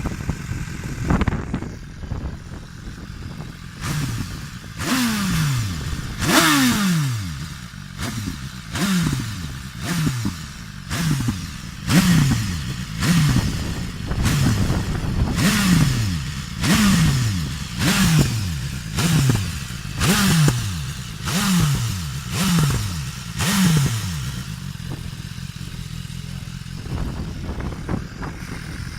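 2017 BMW S1000R's inline-four engine with an Akrapovic HP exhaust, idling and then blipped about fifteen times in quick succession, each rev rising sharply and dropping back, roughly once a second, before settling back to idle near the end.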